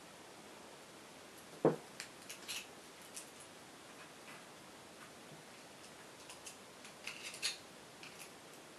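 Scattered light metallic clicks and scrapes of small hand tools on a euro lock cylinder, prying at its retaining clip. A duller knock comes about two seconds in, and a quick run of clicks comes late on.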